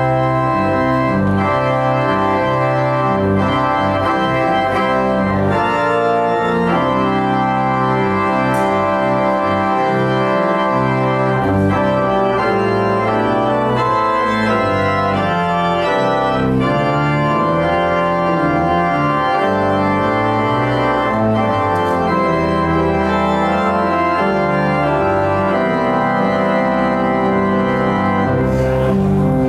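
Organ music playing sustained chords over a slowly moving bass line.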